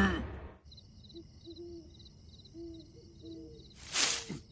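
Night ambience in a cartoon: crickets chirping in quick, evenly repeated pulses, with low hooting calls now and then. About four seconds in, a short, loud rush of noise cuts across it.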